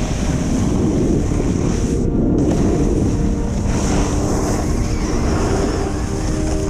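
Steady wind noise buffeting an action camera's microphone at riding speed, over the low rumble and scrape of a board sliding on packed, groomed snow.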